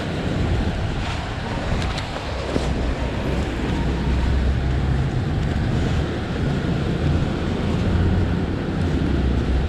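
Wind rushing over the action camera's microphone while riding an automatic scooter, with the engine and road noise underneath as a steady low rumble.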